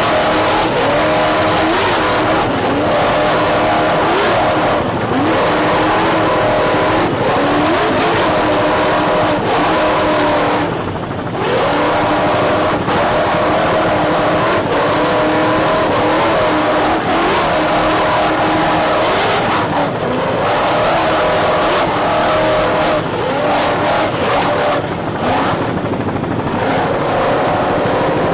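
Offshore racing powerboat engines running at full throttle, their pitch rising and falling over rough water, with a brief dip about eleven seconds in.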